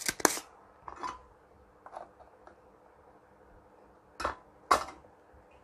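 Sharp plastic clicks and taps from handling a spring-loaded desoldering pump over the circuit board. The loudest cluster comes at the start, a few faint ticks follow, and two more clicks come about four and a half seconds in.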